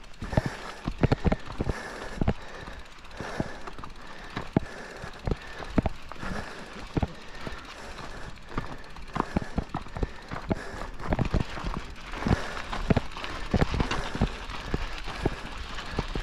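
Mountain bike rattling over a rough dirt and gravel trail: irregular clicks and knocks from the bike's parts over a steady crunch and rush of noise.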